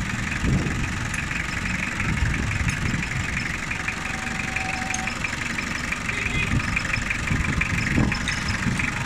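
Toyota 2C diesel engine idling with a steady, rapid diesel clatter while its injection pump timing is being set for advance or retard.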